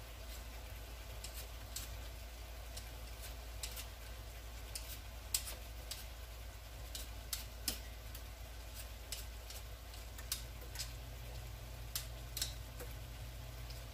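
Potatoes being peeled by hand: short, sharp scraping strokes at an irregular pace, about one every half second to a second, over a steady low hum.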